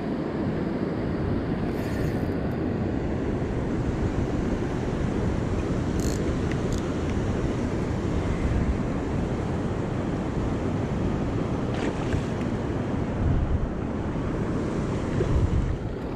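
Steady rush of river water spilling over a low dam, with wind buffeting the microphone. A few light clicks stand out, about six seconds in, around twelve seconds and near the end.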